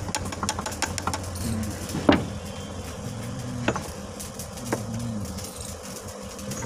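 An engine running steadily, with a run of light clicks in the first second and three sharp knocks, the loudest about two seconds in.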